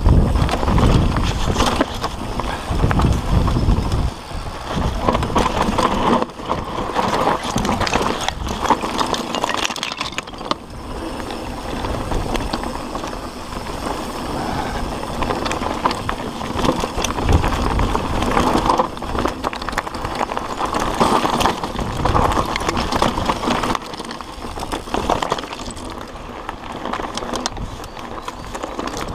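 Mountain bike riding fast down a rough dirt and stone singletrack: the tyres roll and crunch over the ground and the bike rattles and knocks over bumps and rocks. Wind buffets the microphone in heavy low gusts, strongest in the first few seconds.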